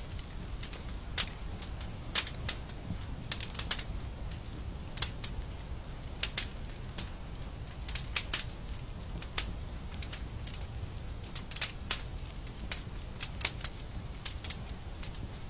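Fire crackling in a fireplace: irregular sharp pops and snaps over a steady low rumble.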